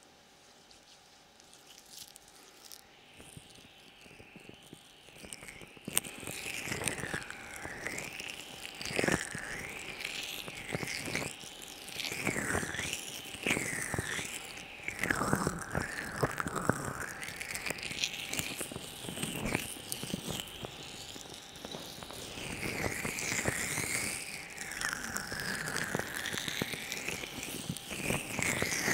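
ASMR hand sounds close to the microphone: hands and fingers moving, cupping and rubbing around the mic, with swishing sweeps and crackly taps. Faint for the first few seconds, then closer and louder from about six seconds in.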